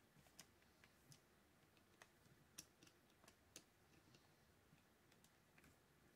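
Faint, irregular small clicks of a screwdriver working a screw out of a Shimano TLD 30 2-speed fishing reel, about a dozen over the few seconds.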